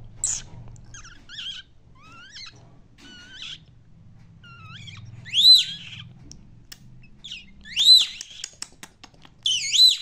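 Indian ringneck parakeet making soft chirps and chatter, then loud rising-and-falling whistles about halfway through and twice near the end, with a few quick clicks between them.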